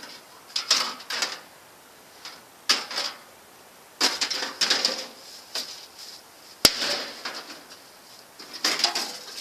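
Thin sheet-metal microwave fan cover clattering and rattling in short bursts as it is bent and propped up, with one sharp click about two-thirds of the way through.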